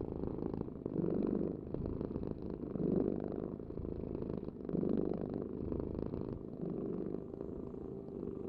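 Domestic cat purring steadily, a low rumble that swells and eases in a slow rhythm about every two seconds.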